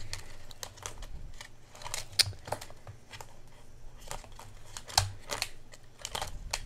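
Hands leafing through the clear cash envelopes of a ring binder: irregular small clicks, taps and rustles of plastic pages on the metal rings and of paper bills. The sharpest clicks come about two seconds in and again about five seconds in.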